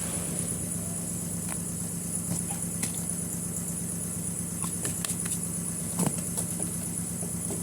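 A steady mechanical hum, like an engine or machine running, with scattered light clicks and rustles over it; the sharpest click comes about six seconds in.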